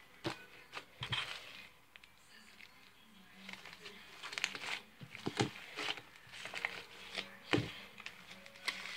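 Hands squeezing and stretching homemade fluffy slime made from glue, shaving cream and laundry detergent, giving irregular short sticky crackles and clicks that bunch up from about four seconds in.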